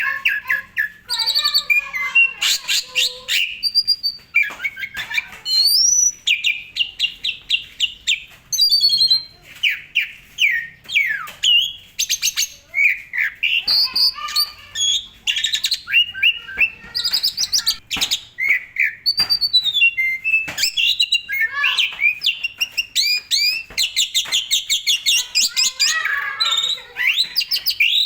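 Pied starling (jalak suren) in full song: a loud, continuous stream of rapid, varied whistles, rising and falling glides, trills and chatters with no pauses. This is the busy, phrase-packed 'gacor full isian' song of a bird in top singing form.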